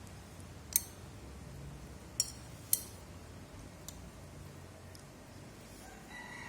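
Three sharp clicks over a low steady hum, about a second, two and a quarter and under three seconds in, with a fainter one around four seconds. Near the end a few steady pitched tones begin.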